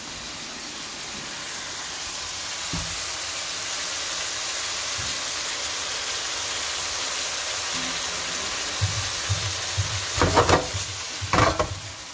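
Minced beef sizzling steadily as it browns in a non-stick frying pan on a gas burner, growing slightly louder. A few louder knocks come near the end.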